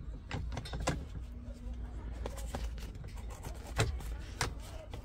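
Scattered sharp clicks and light knocks of parts being handled while a replacement seatbelt buckle is fitted in a car, about five or six over the few seconds, over a steady low rumble.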